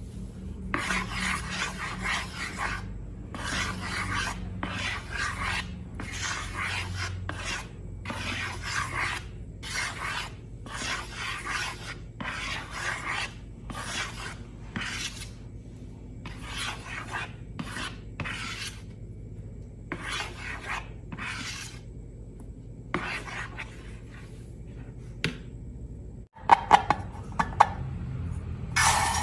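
Repeated rasping, scraping strokes, about one a second, stopping about three-quarters of the way through; a few sharp clicks follow near the end.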